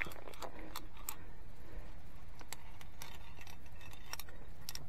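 Via ferrata lanyard carabiners clinking against the steel safety cable as the climber moves along it: a few scattered light metallic clicks over a steady low rumble.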